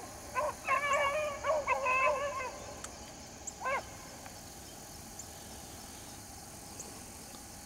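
Rabbit hounds barking and baying while running a rabbit: a few short barks, then a run of drawn-out, wavering bays in the first two and a half seconds and one last bay a little after three and a half seconds. The calls stop after that.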